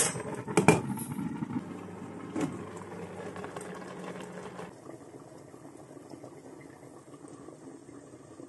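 Pot of spinach and fenugreek leaves boiling under a glass lid: a steady bubbling hiss with two sharp knocks in the first second and another a couple of seconds in. After about four and a half seconds it drops to a quieter, steady hiss.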